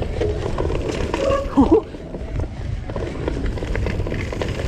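Vitus mountain bike rolling fast over a dirt trail: steady tyre rumble with frequent rattles and clicks from the bike. A short wavering pitched tone cuts in about a second and a half in.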